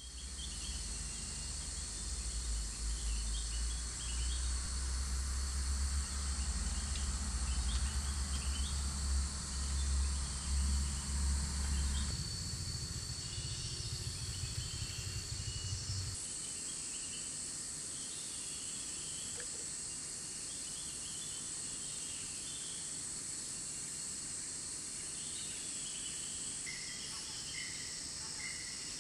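Tropical rainforest insect chorus, a steady high-pitched drone, with scattered faint bird-like chirps. A low rumble sits under it for about the first twelve to sixteen seconds, and a run of short, evenly repeated chirps comes in near the end.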